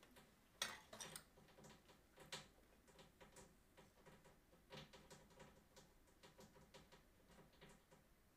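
Faint, irregular clicks and taps over quiet room noise, the sharpest about half a second in.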